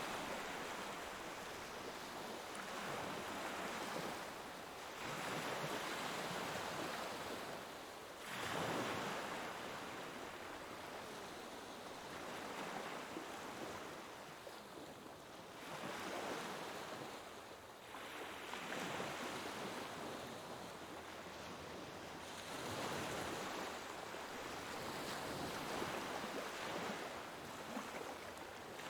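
Sea waves washing in, a steady hiss of surf that swells and fades in repeated surges every three to four seconds.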